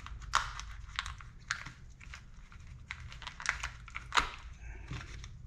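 Plastic parts bag crinkling and crackling as it is handled and opened, a run of irregular sharp crackles with the loudest a little after four seconds in.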